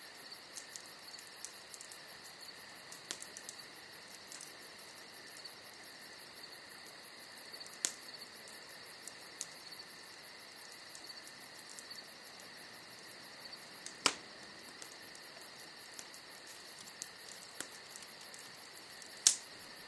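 Wood fire crackling with a few sharp pops, the loudest about two thirds of the way in and near the end, over a steady high chirring of insects.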